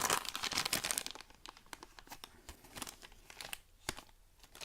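A toy blind bag being torn open by hand, its packaging crinkling, with a loud burst of tearing in the first second followed by scattered crinkles.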